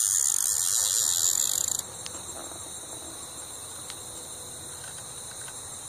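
Field insects trilling steadily in high, unbroken tones. A louder high-pitched hiss covers the first couple of seconds and cuts off suddenly.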